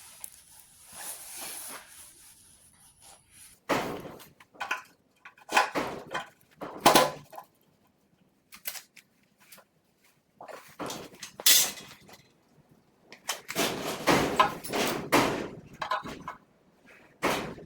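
Irregular knocks, clanks and clatter of hand tools and metal parts being handled, in several separate bursts.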